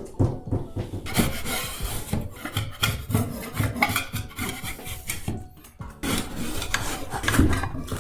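Metal scraper scraping and prying old papery ceiling tiles off a ceiling, in irregular rasping strokes with the tiles tearing and knocking as they come away.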